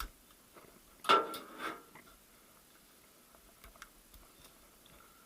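Steel parts of a VAZ 2108–2115 manual gearbox clinking and scraping as the retaining ring is worked into its place on the secondary shaft. There is a loud ringing clink about a second in, then a few light ticks.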